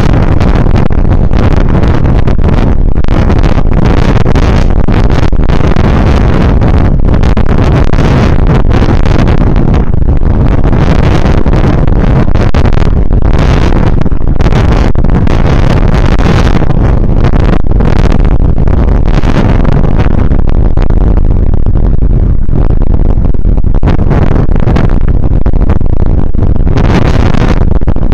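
Loud, constant wind rush and rumble on the microphone of a bicycle-mounted camera while riding along a rough lane.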